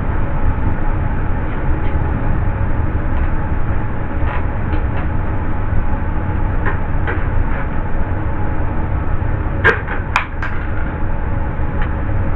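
A steady low rumble throughout, with scattered light clicks and a few sharper clicks about ten seconds in, from screws being driven with a nut driver to mount a computer power supply into a tower case.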